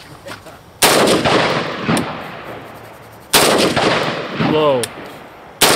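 Rifle fired three times, slow aimed shots about two and a half seconds apart, each a sharp report trailing off in a long echo; the third comes right at the end.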